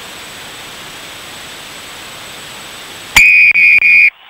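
Steady stadium crowd noise, then about three seconds in a referee's whistle blown loudly in three quick shrill blasts that stop abruptly, as signalled at a try.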